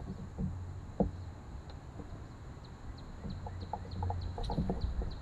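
A bird calling a quick series of short, falling notes, about three a second, starting a second or two in. Under it runs a low rumble with a few soft knocks.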